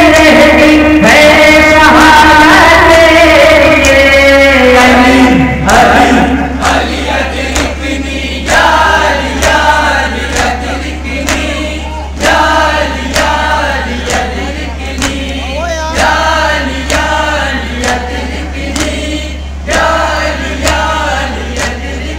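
Noha recitation at a matam: a lead voice sings long held lines, then from about six seconds men chant short repeated phrases about once a second, each marked by sharp slaps of hands beating on chests. A steady low hum runs underneath.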